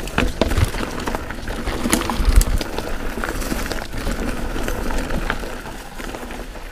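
Mountain bike riding downhill over a dirt trail with loose rocks: tyres crunching and the bike rattling, with many sharp clicks and knocks and some low thumps over bumps.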